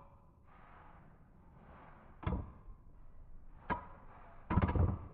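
Dark Wolf and Earth Aquila Beyblade metal spinning tops wobbling toward a stop in a plastic stadium, with a faint hiss and sharp clacks as they knock together: one clack about two seconds in, another near four seconds, and a rattling cluster of clacks near the end.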